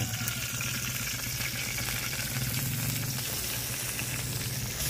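Spices (chili, shallot, garlic and the like) sizzling steadily as they fry, just put into the pan, with a low steady hum underneath.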